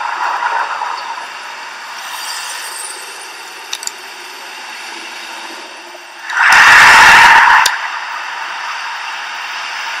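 Street sound from a spy recording of a camouflaged 2018 Shelby GT500 prototype: low background noise, then a loud burst of exhaust noise about six and a half seconds in that lasts about a second.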